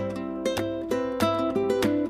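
Background music on a plucked string instrument: strummed chords in a steady, bouncy rhythm.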